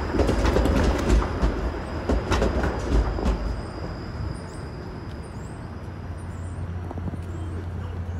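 TTC Flexity Outlook low-floor streetcar running on its rails, with a low rumble and wheel clatter. The sound fades after about three and a half seconds as the car pulls away.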